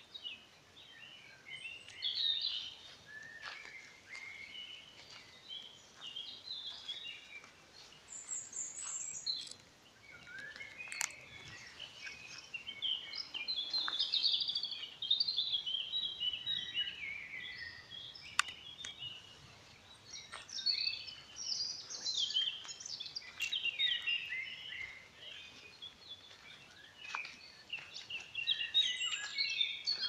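Several songbirds singing at once in a spring woodland dawn-style chorus: overlapping chirps, trills and warbled phrases with no pause, and a few sharp clicks scattered among them.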